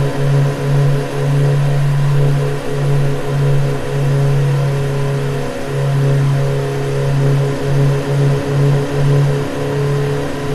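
Honda CB150X's single-cylinder engine running at fairly steady revs while the motorcycle is ridden, its low note pulsing a few times a second.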